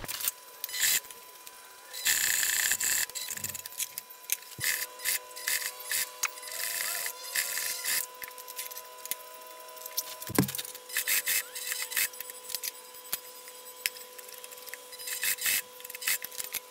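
A 1957 PFAFF 230 light industrial sewing machine stitching canvas in several short runs, its needle mechanism clattering rapidly, with a steady tone underneath and a single heavier knock about ten seconds in.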